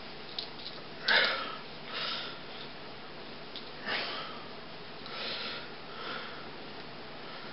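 A person breathing and sniffing close to the microphone: several short breathy sniffs at irregular intervals, with a couple of faint clicks.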